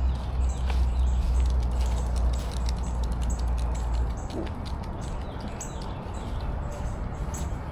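Footsteps on a dirt trail, a steady run of small crunching clicks. Wind rumbles on the microphone and cuts off about four seconds in.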